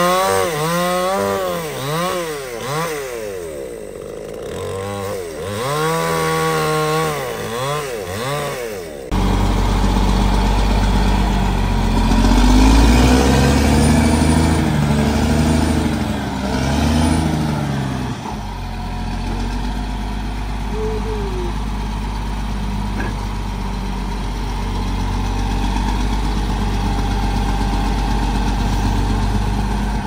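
A chainsaw revving up and down over and over for about nine seconds. It cuts off abruptly into the deep, loud running of a heavy diesel machine engine, which surges up and down in pitch for several seconds and then settles into a steady run.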